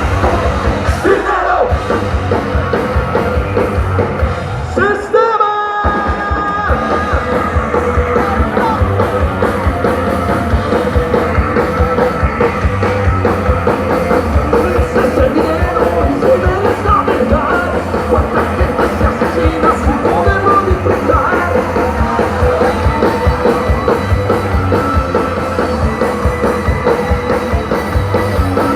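Live rock band playing loud music with a steady beat and a voice singing and yelling over it; about five seconds in the low end drops out briefly under a held high note, then the full band comes back in.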